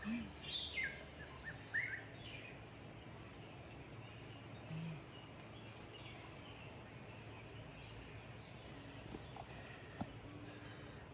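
Crickets or similar insects trilling in a steady, high, unbroken drone, with a few short bird chirps in the first couple of seconds.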